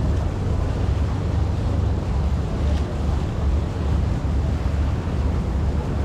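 Steady low rumble of a river cruise boat under way, mixed with wind buffeting the microphone and water washing past the hull.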